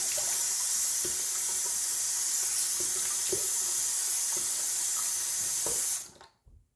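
Bathroom sink tap running a steady stream of cold water for a post-shave face rinse, shut off suddenly about six seconds in.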